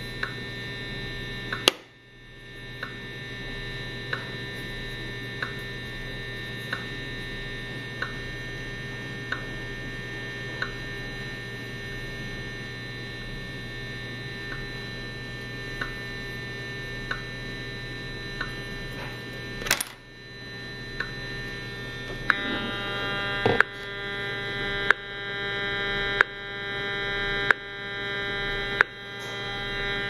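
EMFields Acoustimeter RF meter's speaker sounding out the Fitbit's pulsed wireless signal: a steady electrical buzz with a sharp click about every 1.3 seconds. About two-thirds of the way in, the buzz grows louder and swells up between each click.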